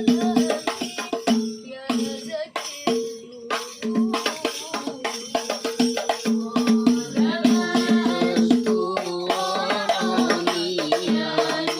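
Hadroh ensemble of hand-struck frame drums (rebana/terbang) playing a fast, dense rhythm, with a voice coming in singing about halfway through.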